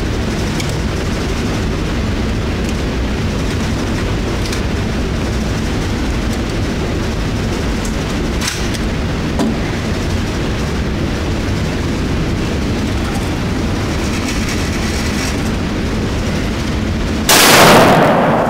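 Steady low rumble of background noise with a few faint clicks, then a single loud shot from a Glock 23 .40 S&W pistol near the end, its report ringing out over about a second.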